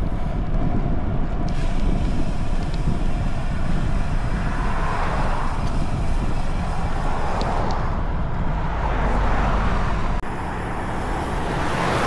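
Wind rushing over the microphone of a moving bicycle's camera, with road traffic noise swelling up a couple of times.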